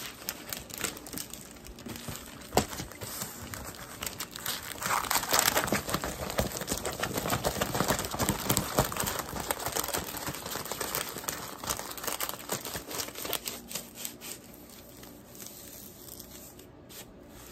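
Diamond painting canvas and its protective sheet crinkling and rustling as they are handled and rolled up by hand, with dense crackles that ease off over the last few seconds.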